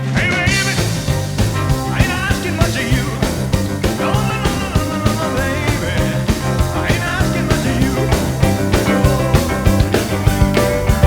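A rock-and-roll band backing track comes in at full volume at the start and plays at a fast, steady beat, with drums, bass and a lead line that bends in pitch.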